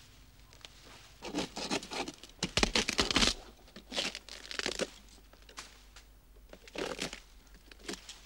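Dry date-palm fronds and fruit stalks rustling and crackling in irregular bursts as a climber moves and works among them. The longest, loudest burst comes between one and three seconds in, with shorter crackles after it.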